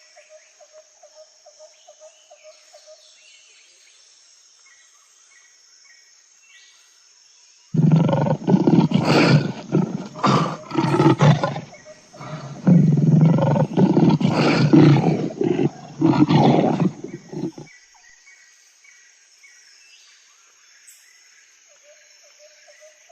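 A large animal roaring loudly in a series of deep calls lasting about ten seconds, starting about a third of the way in. Before and after the roars, faint chirping and a steady high hiss of insects.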